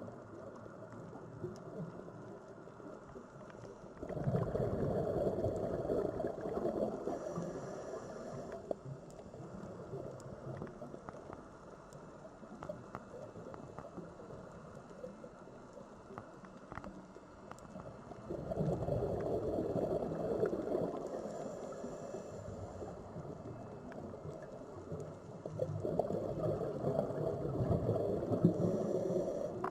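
Sea waves washing ashore: a steady low rush that swells three times as waves break and draw back, the first about four seconds in, the second near the middle and the third near the end.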